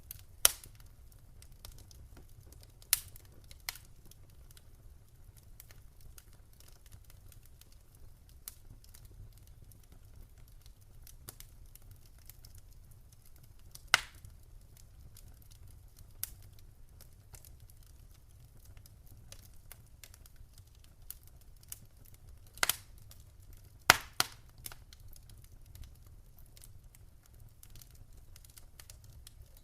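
Wood fire crackling: irregular sharp pops and snaps, a few loud ones among fainter ticks, over a faint steady low rumble.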